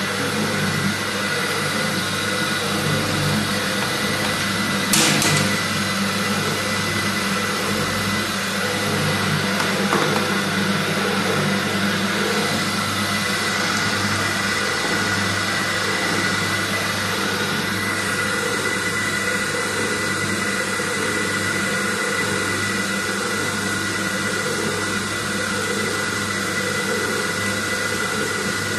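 Sigma Z-arm detergent cake mixer running: a steady machine hum with a high, even whine over it, and a short knock about five seconds in.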